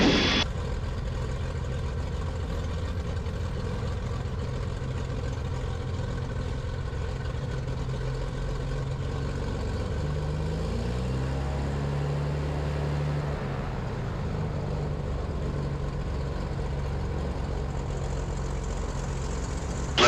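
Twin piston engines of a Cessna T310R running steadily, with the engine tones shifting up and down in pitch for a few seconds about ten seconds in.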